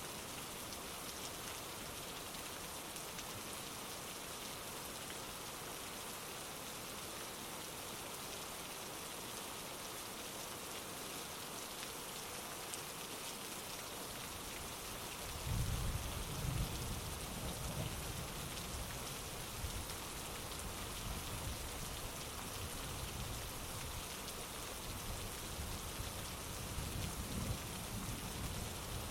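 Heavy rain falling steadily in an even hiss. About halfway through, a low rumble of distant thunder comes in and keeps rolling.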